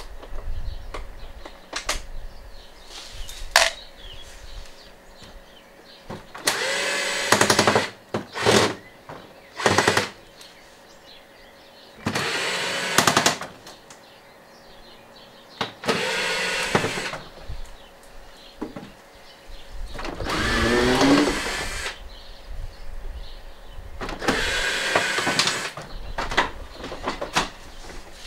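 Cordless drill-driver running in seven short bursts of about a second or two each, with small clicks and knocks between them. In one burst the motor's pitch dips and rises again as the trigger is eased.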